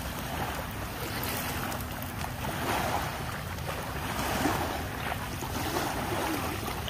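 Sea waves washing on the shore, swelling gently now and then, with wind rushing over the microphone.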